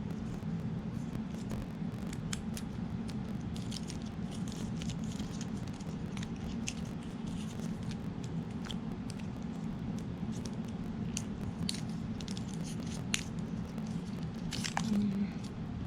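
Packaging being handled as an AirPods Pro charging cable is taken out: scattered faint crinkles and ticks over a steady low hum.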